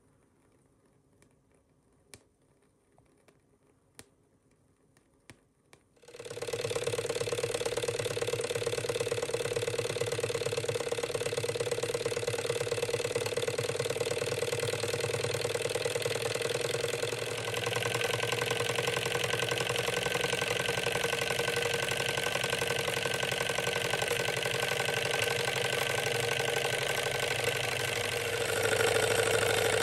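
Antique Bing hot air engine running, with its belt-driven toy beet cutter. A few faint clicks come first. About six seconds in, a steady mechanical clatter starts abruptly and runs on, getting louder near the end.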